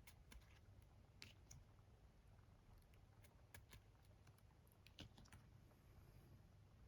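Faint, scattered light clicks and taps of Pokémon trading cards and their cardboard and plastic packaging being handled, irregular and sparse over a low background rumble.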